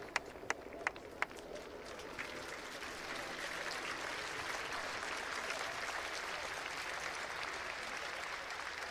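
Crowd applauding. A few sharp, evenly spaced claps come first, about three a second, and a couple of seconds in they give way to steady general applause.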